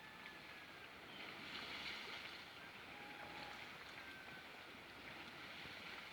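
Faint, steady shoreline water noise, the wash of small waves or moving water, with a few short faint high tones and tiny clicks over it.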